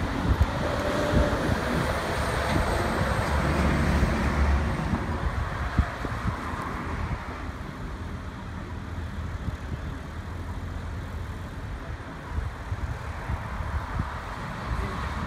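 Road traffic: vehicles passing along the street with a steady low rumble, louder over the first six seconds or so and then easing off.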